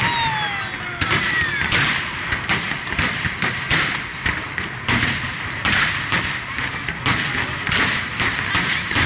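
Aerial fireworks shells bursting in quick succession, about two bangs a second, with a couple of falling whistles in the first two seconds.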